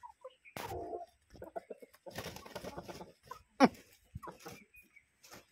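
Desi chickens clucking and giving short squawks, with a flurry of wing flapping as a rooster mounts a hen. One sharp call about three and a half seconds in is the loudest sound.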